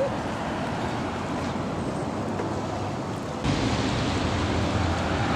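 Steady rushing outdoor noise of wind and the river's water, with no distinct events. About three and a half seconds in it abruptly gets louder, with more low rumble.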